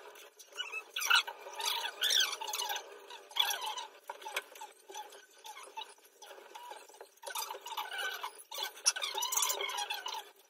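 Gift wrapping paper rustling and crinkling around a box, with adhesive tape pulled squeaking off its roll, in several irregular bursts with short pauses between them.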